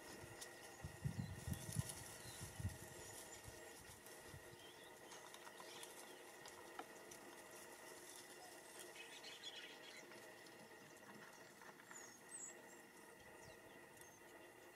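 Quiet ambience with a steady faint high tone, a few soft low thumps in the first three seconds, and faint scattered high chirps.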